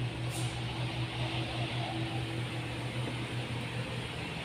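Steady low mechanical hum with a hiss, like a running fan or motor; a faint higher steady tone fades out about two and a half seconds in.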